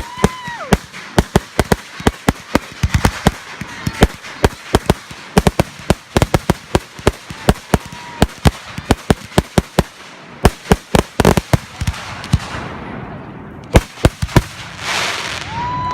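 Fireworks display: rapid sharp bangs of shells bursting, several a second, with a brief lull about ten seconds in and a spell of crackling hiss near the end. A whistling tone sounds at the start and again just before the end.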